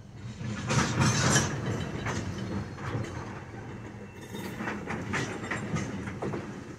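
Railroad tank cars rolling slowly past, wheels clacking and knocking over the rail joints over a low rumble. The knocks are loudest about a second in and come again in a cluster around five seconds.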